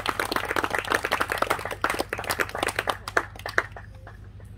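A small crowd clapping and applauding. The clapping thins out and dies away about three and a half seconds in.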